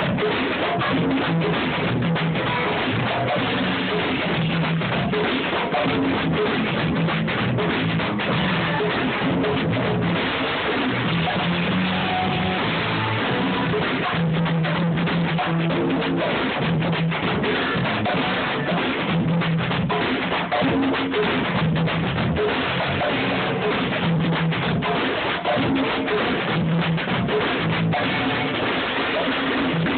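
Band music with a drum kit and guitar playing a steady groove, in a low-fidelity phone recording.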